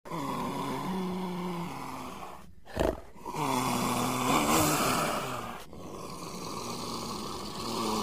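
Leopard growling in three long, rough calls, the middle one loudest. A short sharp click comes just before the second call.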